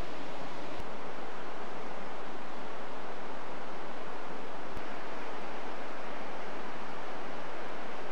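River water rushing steadily, with two faint clicks, one about a second in and one near the middle.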